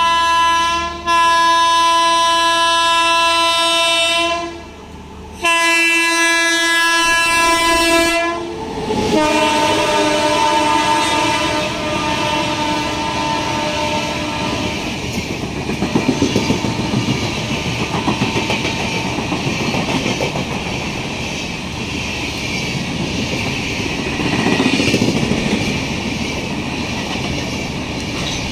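The Shaktipunj Express's locomotive horn sounds in long blasts as the express passes through the station without stopping, its pitch dropping as the locomotive goes by about eight seconds in. The horn then stops, and the coaches rush past at speed with a steady rumble and wheel clatter on the rail joints.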